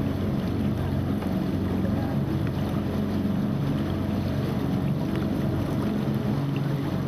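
A boat's motor running steadily under way, with wind on the microphone and water rushing past.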